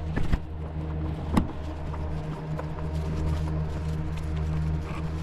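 Hand work on engine vacuum lines and fittings: a sharp click about a second and a half in and a few fainter taps, over a steady low hum.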